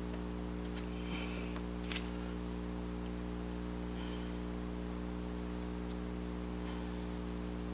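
Steady low electrical hum, with faint clicks and a brief scratch about a second in as small pieces of EVA foam are handled on a cutting mat.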